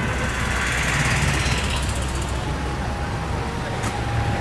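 City street traffic: a steady low rumble of passing vehicles, with a fast, even rattle in the first couple of seconds and a thin steady whine in the second half.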